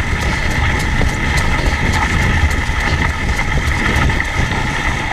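Dog sled moving over a snowy trail: a steady rumble and hiss from the sled, with faint scattered ticks.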